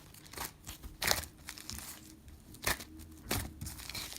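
Sticky slime being handled, pressed and pulled apart, giving a few short crackling, crinkly noises, the loudest about a second in.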